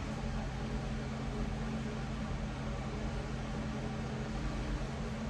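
A machine humming steadily: a low, even electrical tone over a constant whir, as from a motor or fan running.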